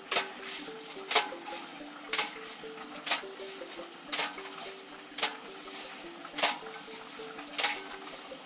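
A bunch of freshly plucked leafy greens slapped against an open hand eight times, about once a second, beating the soil out of the leaves. Soft background music with a simple melody plays underneath.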